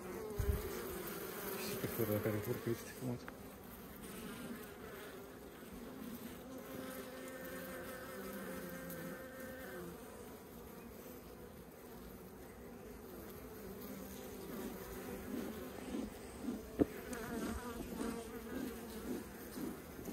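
Honeybees buzzing around a frame lifted out of an open hive: a steady hum of many bees at several overlapping pitches, with a few light knocks of handling near the start and again near the end.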